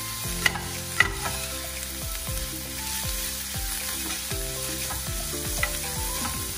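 Chopped onions and green chillies sizzling in hot oil in a stainless steel frying pan as they are stirred and sautéed with a metal spoon. The spoon clicks against the pan a few times, most sharply about half a second and one second in.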